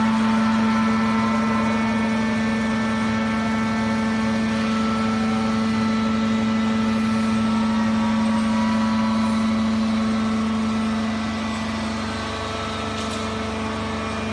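Rice husk baling machine running with a steady, strong mechanical hum, easing off slightly near the end.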